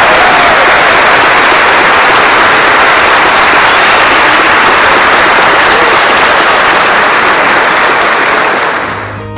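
Wedding guests applauding, a loud, dense clapping that fades out near the end.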